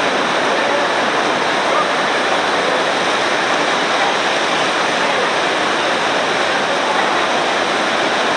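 Loud, steady rush of the Mujib river's water pouring down a cascade in the canyon.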